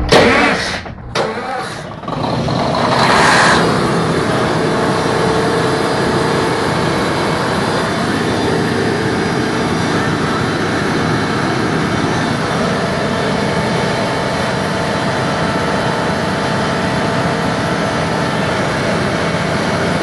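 Loud, steady running of ship's diesel machinery, full of fixed hums, with a brighter hissing surge about three seconds in. A sharp loud knock at the very start.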